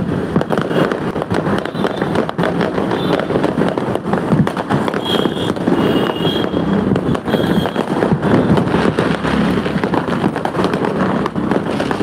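Diwali fireworks and firecrackers going off all across the town, many bangs and crackles overlapping without a break.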